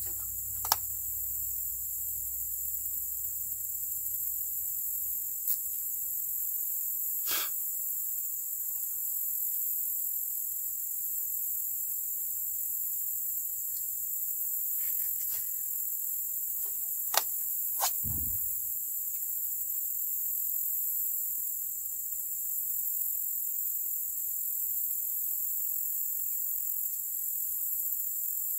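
Steady high-pitched chorus of insects droning without a break. Several sharp clicks and knocks are scattered through it, two close together past the middle, followed by a low thump.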